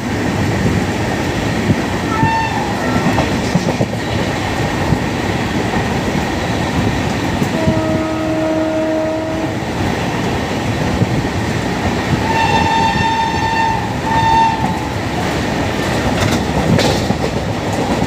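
Steady clatter of a fast-moving train heard from on board, with shrill WAP-7 electric locomotive horn blasts: a short one about two seconds in and two in close succession from about twelve seconds in. Near the middle, a lower-pitched horn sounds steadily for about two seconds.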